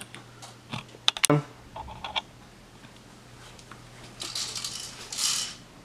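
A quick cluster of sharp clicks a little over a second in and a couple more near two seconds, then a stretch of rustling near the end.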